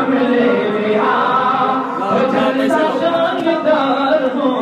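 A group of voices chanting a naat, a devotional Urdu song in praise of the Prophet, in melodic lines with overlapping voices.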